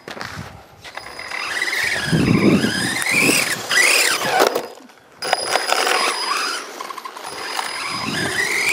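Brushless electric motor of an RC car whining, its pitch rising and falling several times as the car speeds up and slows. A high steady tone runs under it, and the sound drops away briefly about five seconds in.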